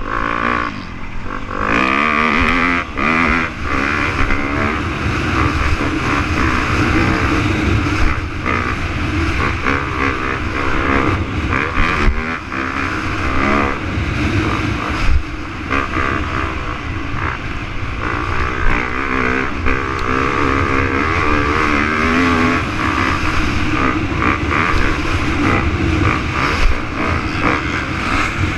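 Dirt bike engine at racing speed, revving up and down as the rider accelerates and shifts around the track, with a few sharp knocks along the way.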